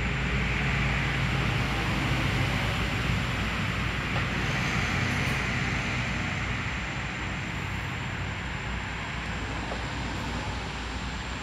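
Steady background rumble: a low, even hum under a broad hiss, easing slightly near the end.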